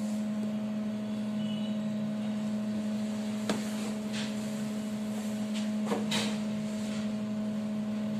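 Steady low hum, with one sharp click about three and a half seconds in and a few softer clicks around six seconds.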